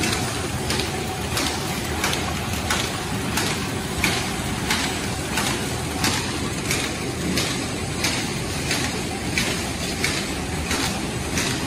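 Factory machinery running with a steady mechanical din and a regular sharp knock about every two-thirds of a second.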